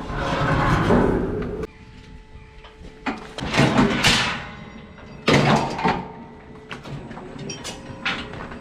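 Metal clanks and bangs from a cattle hoof-trimming crush being worked around a cow, with two loud bangs in the middle.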